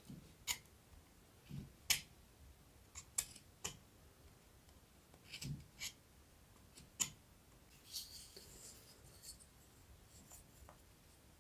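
Carving knife taking small cuts in a wooden spoon handle: faint, short, crisp snicks at irregular intervals, with a few soft low knocks and a longer scraping stroke about two-thirds of the way through.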